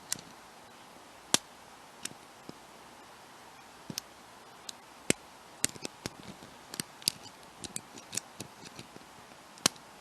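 Lock pick and tension wrench working a brass five-pin padlock: scattered sharp metallic clicks and ticks, sparse at first and coming more often in the second half.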